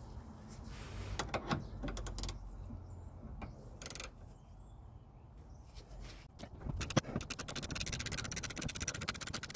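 Hand tools working a bolt out of a car's anti-roll bar drop link: scattered metallic knocks and clicks, then a fast, even run of clicking for the last two or three seconds.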